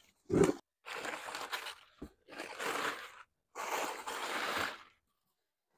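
Crumpled newspaper packing crunching and rustling as it is pulled out of a cardboard box, in three bursts of about a second each, after a short thump at the start.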